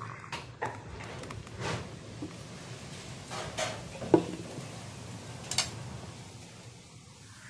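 Thick blended fruit juice pouring from a mixer jar into a glass, then a few knocks and clicks of kitchenware, the sharpest about four seconds in.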